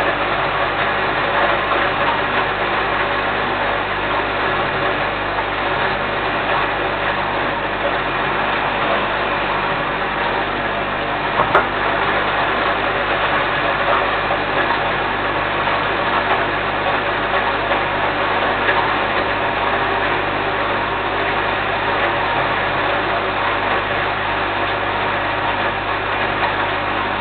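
Small electric grain mill running steadily, grinding grain for quail feed into a sack. A single sharp knock stands out about twelve seconds in.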